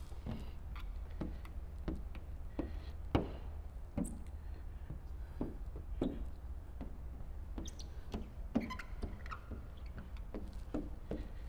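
Irregular light clicks and taps, about two a second, over a steady low hum: squeegee and hand work on wet paint protection film on a car hood.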